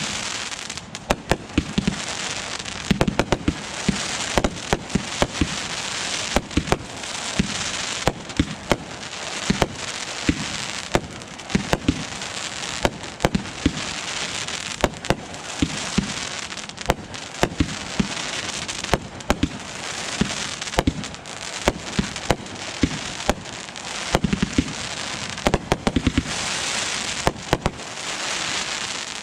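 Aerial fireworks display: a rapid, continuous string of shell bursts and bangs, often several a second, over a constant crackling hiss.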